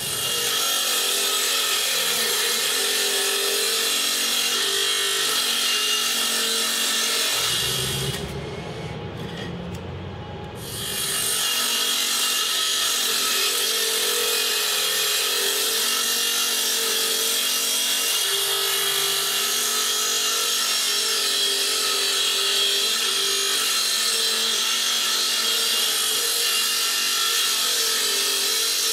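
Table saw running steadily. The sound dips for a few seconds about eight seconds in, then comes back at the same level.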